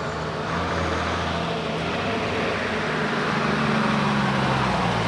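Diesel engine of a Kerala private bus running steadily with road noise as the bus approaches and pulls up to a roadside stop.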